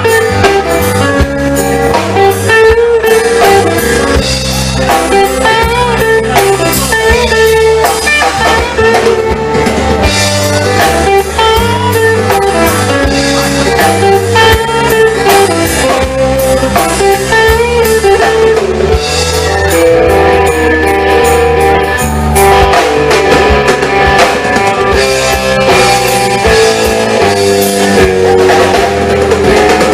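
Live band playing an instrumental passage: guitar over a bass line and drum kit.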